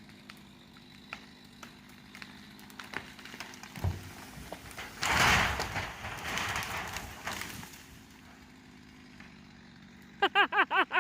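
A tree falling: a string of sharp cracks and snaps as the trunk gives way, a heavy thud about four seconds in, then a loud crash of trunk and branches hitting the ground lasting a couple of seconds. Near the end comes a quick run of short voiced calls.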